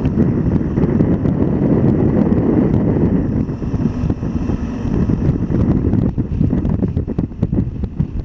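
Motorcycle ridden slowly, its engine low under a steady rumble of wind on the microphone. The wind turns gustier and more buffeting in the second half.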